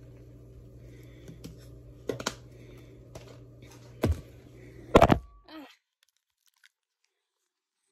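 A few sharp knocks and clicks of things being handled and set down, the loudest about five seconds in, over a steady low hum. The sound cuts off abruptly just after.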